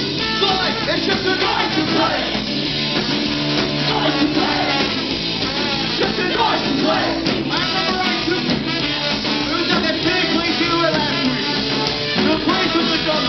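Ska-punk band playing live at full volume: a man singing over drums, electric guitar, bass guitar, trombone and saxophone.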